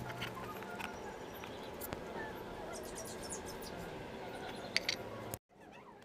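Light clicks and handling noises from hands fitting alarm wiring under a motorcycle seat, over a steady faint background with a few short, faint high chirps. The sound drops out abruptly near the end.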